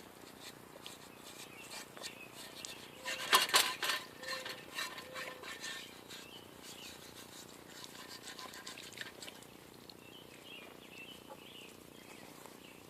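Metal lathe parts clinking and knocking as they are handled, with a burst of knocks about three to four seconds in and lighter ticks after. Faint bird chirps near the end.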